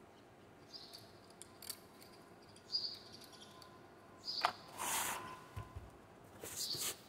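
Handling noise from a new electric router: scattered clicks, rustling and a few short high squeaks, with a dull knock about five and a half seconds in as the router is set down on the table.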